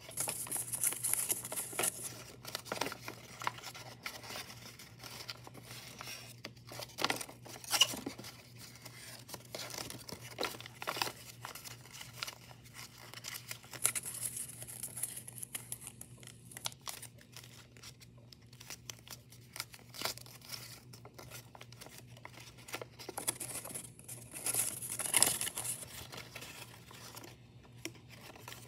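Paper being folded and creased by hand: irregular rustling and crinkling with sharp little crackles, and longer sliding swishes of the sheets at the start, about halfway through and near the end.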